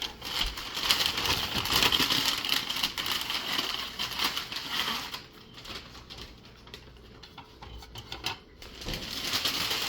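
Hands rummaging through packing peanuts and wrapping in a cardboard box, a dense rustling crackle with many small clicks. About five seconds in it drops to quieter, scattered rustles and taps.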